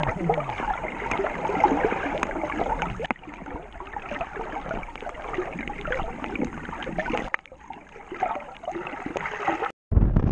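Muffled underwater sound through a camera submerged with swimmers: bubbling and dense fine crackling. Near the end it cuts off abruptly, then a loud rush of wind on the microphone of a moving speedboat.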